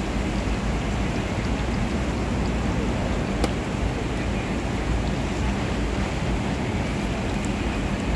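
Hot oil sizzling and bubbling steadily in a large wok as battered pieces deep-fry, with a low steady hum underneath and a single sharp tick about three and a half seconds in.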